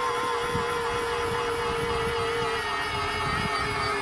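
Robart electric landing-gear retracts whining steadily as the main wheels of a large-scale model aircraft fold up into the wings; the whine drops slightly in pitch about two and a half seconds in.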